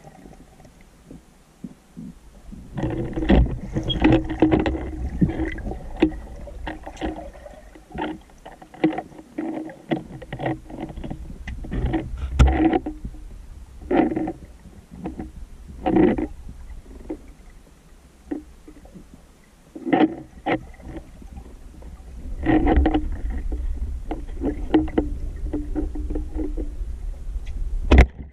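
Underwater sound through a camera housing: a low rumble of moving water with many irregular clicks and knocks from the diver's speargun and gear.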